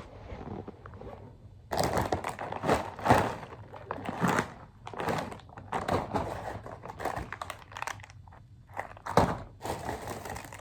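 Plastic shopping bags and food packaging crinkling and rustling in irregular bursts, with a few thuds as items are handled and set down.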